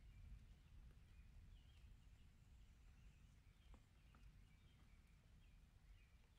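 Very faint storm ambience: a low, uneven rumble of distant thunder, with soft bird chirps repeating throughout and a few light ticks.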